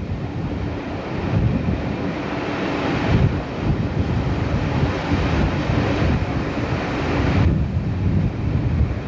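Wind buffeting the microphone at an open window of a moving train, over the low rumble of the train running. The wind hiss grows brighter about three seconds in and falls away near the end.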